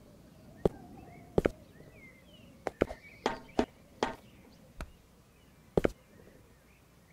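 A dozen or so sharp knocks at irregular intervals, some in quick pairs, with faint short high chirps between them.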